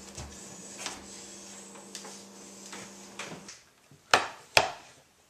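Two sharp knocks about half a second apart near the end: a ceramic serving platter set down on a wooden dining table. Before that, faint light taps over a steady low hum that cuts off abruptly.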